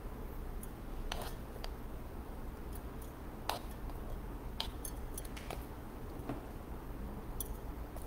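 Small plastic hand trowel scooping potting soil from a bowl and tipping it into a terracotta pot: light, irregular scrapes and clicks as the scoop digs into the soil and knocks against the containers, over a steady low hum.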